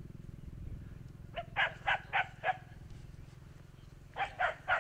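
An animal calling in two quick runs of about five short calls each, the first about a second and a half in and the second near the end, over a steady low rumble.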